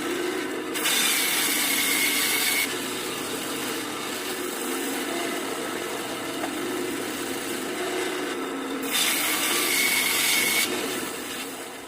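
Draper band saw running steadily, cutting through wood twice; each cut is louder for about two seconds, with a faint whine, before it drops back to the motor's idle run.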